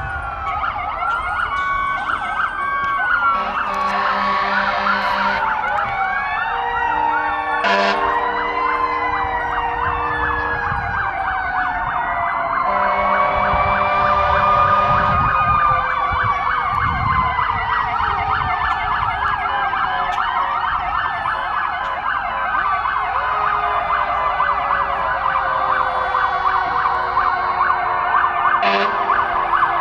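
Several emergency-vehicle sirens from fire engines and a police cruiser sounding at once, wails and fast yelps overlapping. Air horns blast in three long spells in the first half, and one siren slides slowly down in pitch through the second half.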